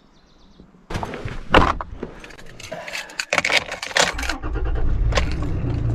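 Keys jangling and clicking, then a truck engine starting about four seconds in and running with a low, steady rumble.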